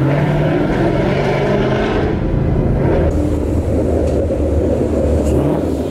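Ford Mustang GT's 5.0 Coyote V8 running with a loud exhaust, a steady deep rumble at low revs.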